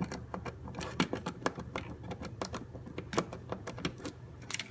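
Screwdriver backing small screws out of a router's circuit board: a run of light, irregular clicks and ticks, several a second.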